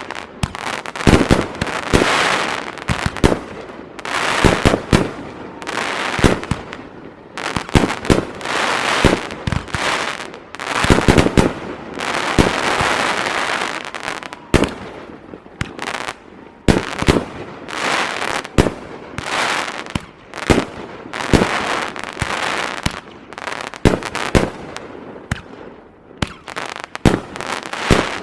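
Aerial fireworks in a continuous barrage: sharp booms of shells bursting one after another, often several a second, with crackling and hissing between them and a longer stretch of crackle about halfway through.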